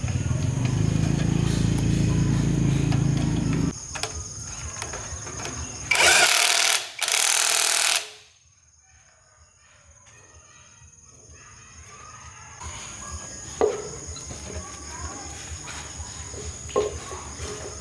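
A motorcycle engine running steadily, then cutting off suddenly about four seconds in. Two loud bursts of hissing noise follow about two seconds later, then a quiet background with a couple of sharp knocks.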